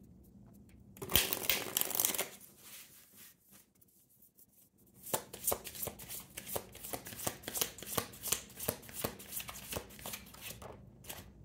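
Oracle card deck being shuffled by hand. A short rustle comes first, then a pause, then several seconds of rapid card clicks and flutters.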